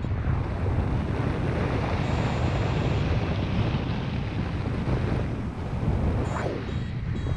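Airflow over a paraglider pilot's camera microphone in flight: steady wind noise, mostly a deep rumble.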